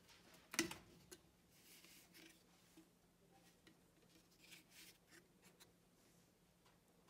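Quiet handling of a plastic maple syrup bottle as it is picked up and moved over the plate: one sharp click about half a second in, then a few faint clicks and soft rustles.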